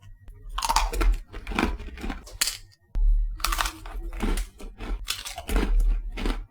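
Close-miked crunching and chewing of a chocolate-coated biscuit in irregular loud spells, with a low rumble and background music underneath.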